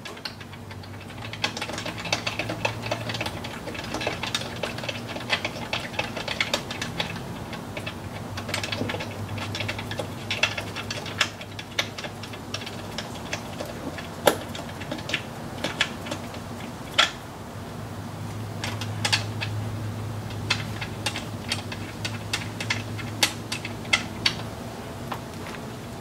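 A ratchet wrench clicking in short irregular runs, with a few louder metal clinks, as the throttle body's mounting nuts are run down onto their studs. A steady low hum underneath.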